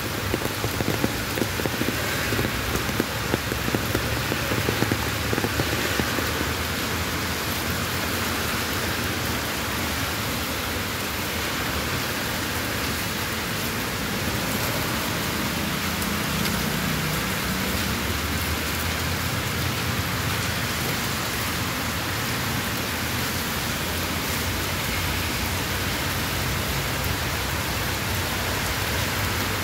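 Heavy rain pouring onto paved sidewalk and street, a steady dense hiss. For about the first six seconds, sharp hits of close drops stand out over it.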